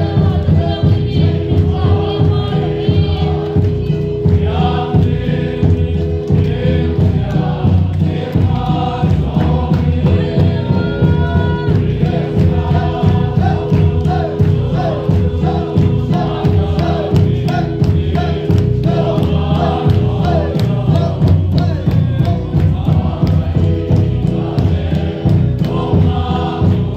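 A congregation singing a gospel song together and clapping along, over amplified accompaniment with long held chords and a steady beat.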